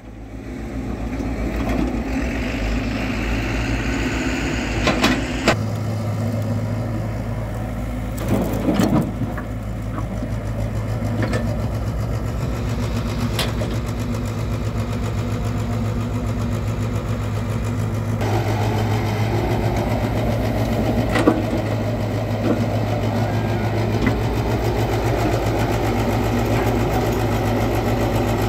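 Diesel engine of an L&T-Komatsu tracked excavator running steadily as it digs and loads soil, with a few sharp knocks and a short burst of clatter about eight seconds in.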